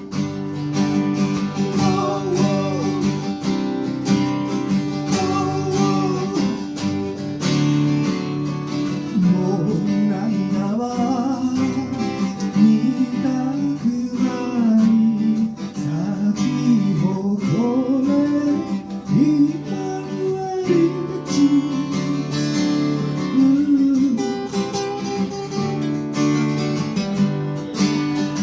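Acoustic guitar playing an instrumental passage: steady chords under a melody line whose notes slide and bend, most of all in the middle stretch.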